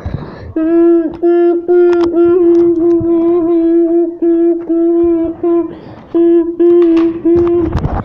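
A child humming one steady note over and over in short stretches, close to the microphone, with a few knocks near the end.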